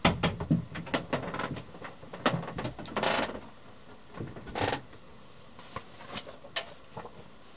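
Irregular clicks and knocks with two short rustles, about three and four and a half seconds in: handling noise from a handheld camera being moved around a small boat cabin.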